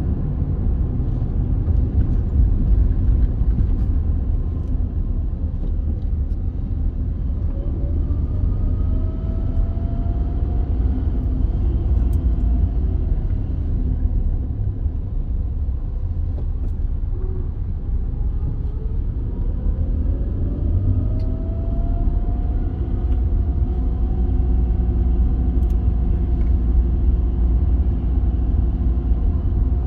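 Car interior road noise while driving on a motorway in slow traffic: a steady low rumble of engine and tyres. The engine tone rises twice, about eight and about nineteen seconds in, as the car picks up speed.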